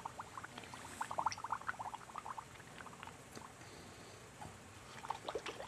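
Underwater bubbling sound effect: a faint scatter of short popping blips, thick through the first two seconds or so, thinning out, then clustering again near the end.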